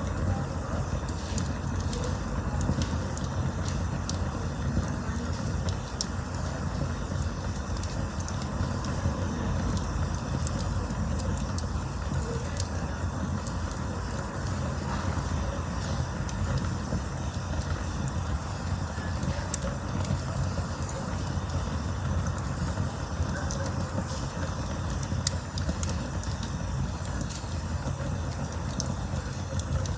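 Campfire burning: a steady low rumble with scattered sharp crackles and pops from the burning wood.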